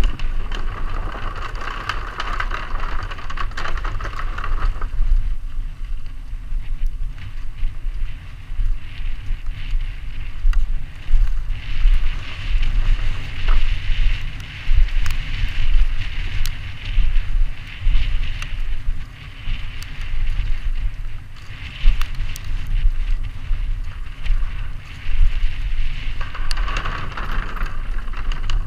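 Mountain bike descending a dirt forest trail, heard from a helmet-mounted camera: wind buffeting the microphone, tyres on dirt and the bike rattling over bumps, with many sharp knocks from roots and wooden planks.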